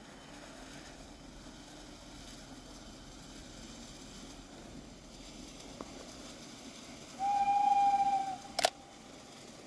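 Steam locomotive whistle: one steady blast of just over a second, about seven seconds in, over a faint steady background noise. A single sharp click follows right after the blast.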